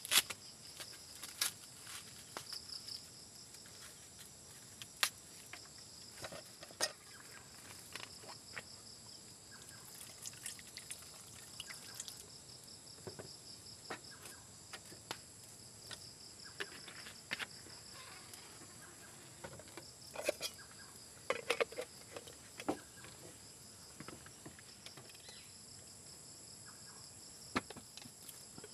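Evening insect chorus: crickets trilling in steady, high-pitched, pulsing bands. Over it come scattered short rustles, clicks and knocks as corn husks are stripped and a pot is handled, with a louder cluster of knocks about two-thirds of the way through.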